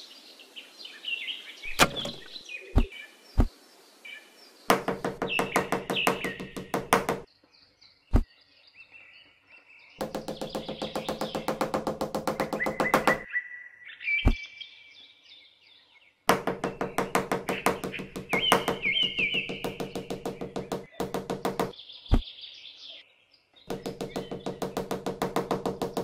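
Runs of rapid, even knocking, about seven knocks a second, each run lasting a few seconds, with single knocks in the pauses between and birds chirping in the background.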